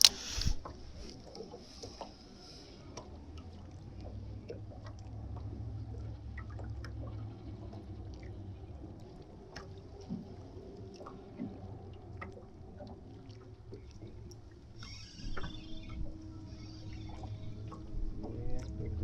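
Small waves lapping against a fishing boat's hull, with a sharp click at the very start, scattered small knocks and a low steady hum; a steady higher hum joins about fifteen seconds in.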